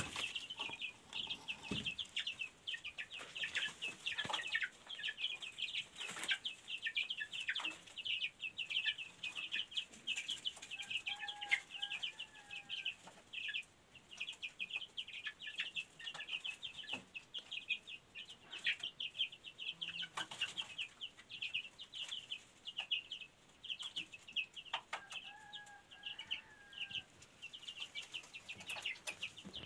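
A brood of young chicks peeping continuously in quick, high chirps. Twice, once near the middle and once near the end, a lower two-note call stands out.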